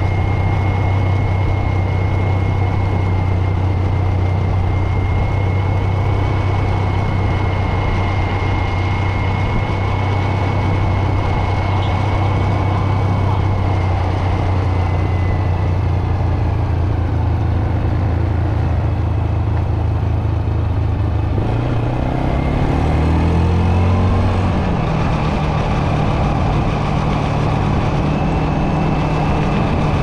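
ATV engine running steadily under way, with a faint high whine above it. About two-thirds of the way in, the engine note climbs over two or three seconds as it speeds up, then holds at a higher pitch.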